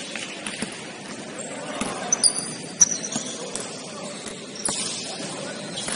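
A basketball bouncing on a gym floor a few times, with short high sneaker squeaks and players' voices echoing in the hall.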